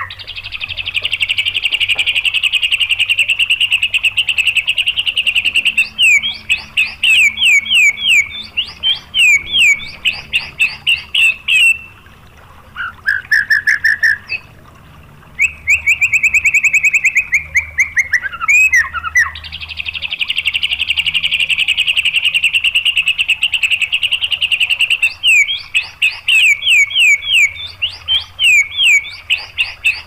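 White-rumped shama song: a long, rapid, high trill, then chains of quick down-slurred whistled notes, a short lower trill and another fast trill. About two-thirds of the way in, the same sequence starts over. These are the rapid-fire 'tembakan' phrases used to train and provoke captive shamas.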